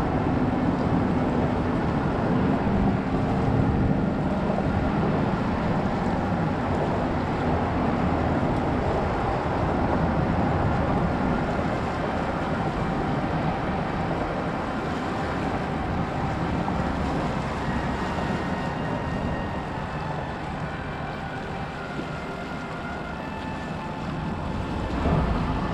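Steady outdoor rumble: a distant engine drone with wind on the microphone.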